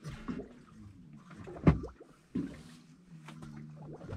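A sharp knock about a second and a half in, a second thump just after it, and a few lighter clicks, over a low steady hum.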